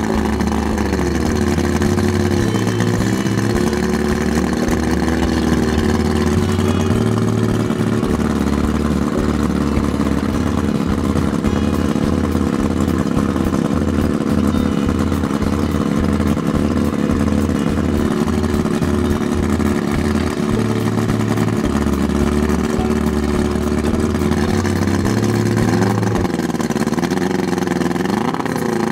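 1983 Mercury Classic 50 hp two-stroke outboard running out of the water at a fast idle. The revs dip and come back up about two seconds in and again near the end.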